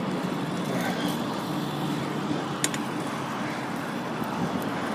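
Steady road traffic noise from passing cars, with a single sharp click about two and a half seconds in.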